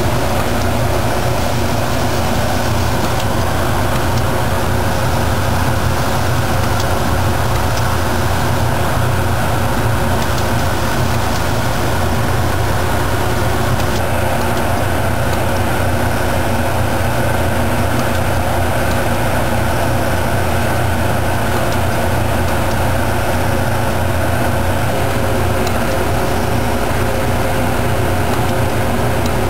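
Abplanalp through-feed surface grinder running steadily while dry grinding laminated steel E-cores fed through on its conveyor belt: a dense, unbroken mechanical drone with several steady hum tones that stays at one level throughout.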